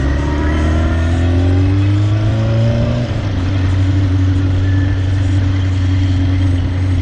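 Vehicle engine speeding up, its pitch rising for about three seconds, then running steady, over a constant low rumble.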